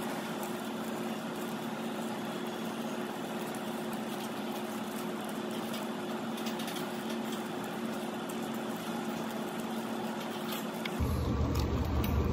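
Steady restaurant room tone with a low hum, with faint crackles and rustles of shrimp shell and thin plastic gloves as raw marinated shrimp is peeled by hand. About a second before the end, a louder, deeper sound comes in.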